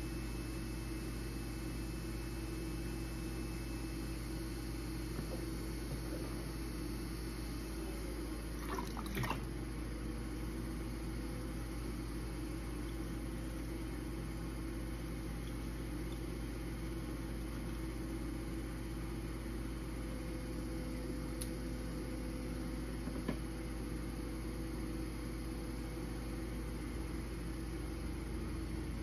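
Electric potter's wheel running with a steady hum while a wet clay bowl spins under the potter's hands. A brief scraping sound about nine seconds in, and a single click later.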